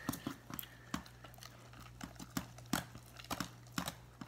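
Sticky homemade slime being stirred in a bowl: irregular sharp clicks and wet smacks, two or three a second, as the utensil knocks the bowl and pulls through the slime.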